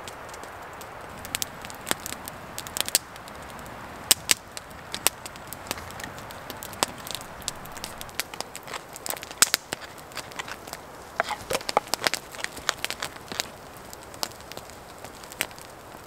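Wood campfire crackling, with many irregular sharp pops and snaps over a soft steady hiss.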